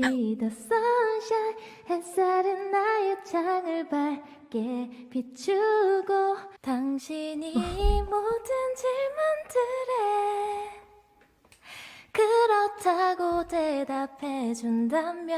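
A woman singing softly a cappella in a breathy tone, one gentle melodic line with held notes, breaking off briefly about eleven seconds in before carrying on.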